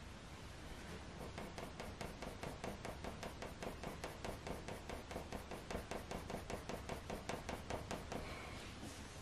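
Faber-Castell Polychromos coloured pencil in dark sepia scratching quick, short fur strokes on hot-press watercolour paper: a fast, even run of light strokes, about six a second, easing off near the end.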